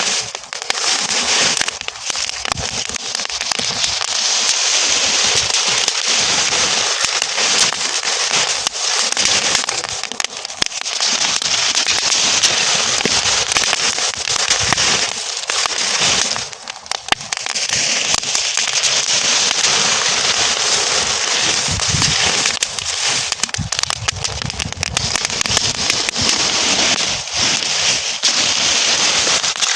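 Burning straw crackling densely: a fast, continuous run of small pops and snaps over a hissing rush of flame, easing briefly a little past halfway.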